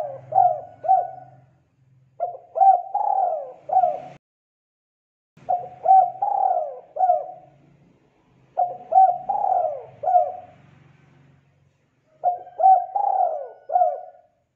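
Spotted dove cooing: phrases of three or four quick coos, repeated about every three and a half seconds.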